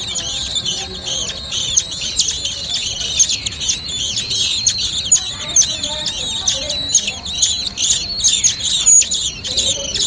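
Common blackbird nestlings begging: a steady chorus of rapid, high, thin chirps from several chicks at once.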